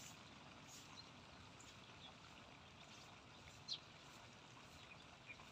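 Near silence: faint open-air field ambience with a few brief, faint high ticks, the clearest about three and a half seconds in.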